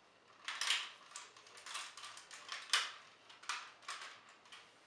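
Hard plastic parts of a Wolkaiser robot toy clicking and rubbing as they are handled and rotated into place: a run of short clicks roughly every half second to a second, one sharper click near the middle.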